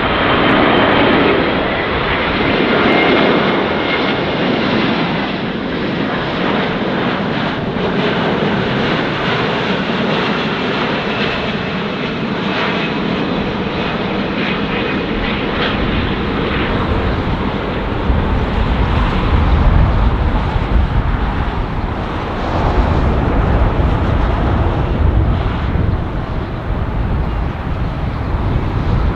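Airbus A350-1000 airliner's Rolls-Royce Trent XWB turbofan engines on final approach to landing: steady jet noise with a high whine at first, and a deeper rumble growing over the second half as the aircraft nears touchdown.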